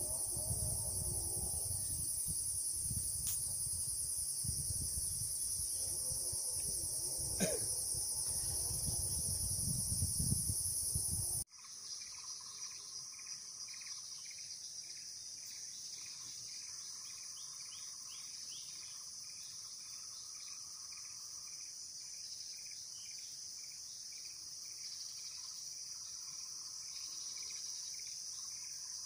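Insect chorus shrilling steadily at a high pitch. For about the first eleven seconds a low rumble sits beneath it. Then the sound cuts abruptly to the insects alone, a little quieter, with rapid repeated chirps lower down.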